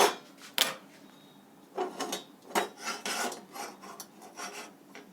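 Metal kitchen utensils being handled while water is heated on the stove. There are two sharp clicks near the start, then a quick run of short scraping, rubbing sounds.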